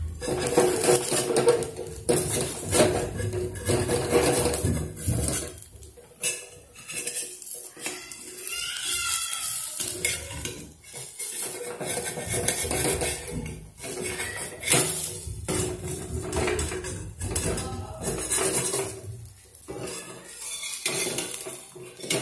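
A steel spatula scraping and clinking against the appam pan (appa chatti) as a cooked appam is loosened and lifted out: a long run of irregular scrapes and knocks.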